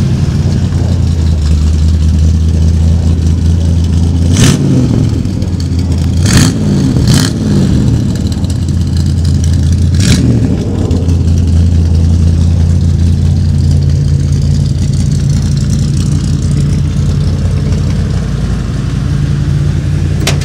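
1977 Ford F-150's 351 Cleveland V8 with dual exhaust running just after start-up. The throttle is blipped four short times in the first ten seconds, each rev rising and falling, and then the engine settles into a steady, loud idle.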